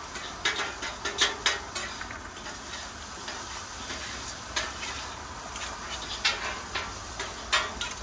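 Shrimp sizzling in butter, garlic and oil on a Blackstone flat-top griddle, with a steady frying hiss. A metal spatula and fork clack and scrape sharply against the griddle in several quick flurries as the shrimp are tossed.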